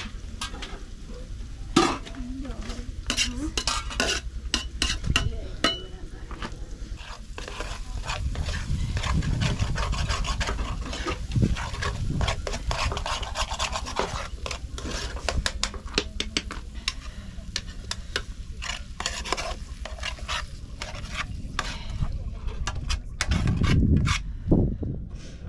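Food being stirred in a pan or pot over a fire: a utensil scraping and clinking against the pan many times, with sizzling.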